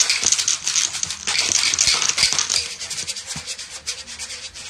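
Plastic dice-stacking cup swept in quick circles over a smooth tabletop, its rim scraping the surface while the dice inside rattle and click against each other and the cup wall. Busiest for the first two and a half seconds, then lighter.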